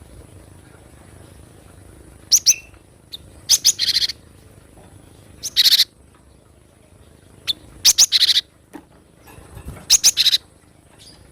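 Cinereous tit (gelatik batu) calling: short bursts of rapid, very high chirping notes, repeated about every two seconds.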